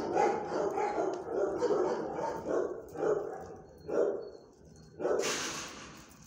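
Dog barking: a run of barks at about three a second, then single barks about three and four seconds in, and a harsher burst just after five seconds.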